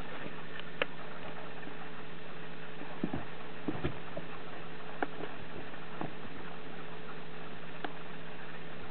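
Scattered light taps and bumps of kittens moving about in a wire playpen, over a steady hiss with a faint low hum.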